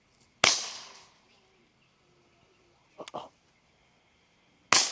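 Two shots from a suppressed Walther P22Q .22 LR pistol, about half a second in and near the end. Each is a sharp report with a short fading tail. A fainter double click comes between them, about three seconds in.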